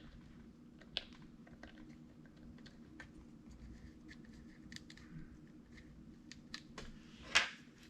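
Light, scattered clicks and taps of a small wrench working a wheel nut on an RC buggy, with a short, louder scrape near the end, over a faint steady hum.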